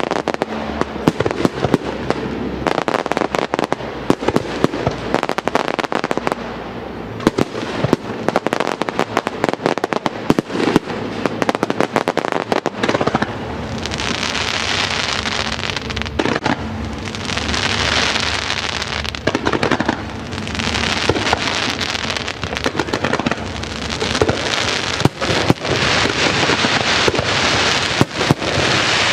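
Fireworks display: a fast, dense run of shell bursts and sharp reports. From about halfway through, long stretches of hissing crackle sound between the bangs.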